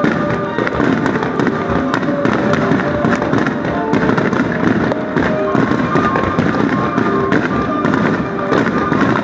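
A dense, unbroken barrage of aerial fireworks shells bursting and crackling many times a second, over music with held notes.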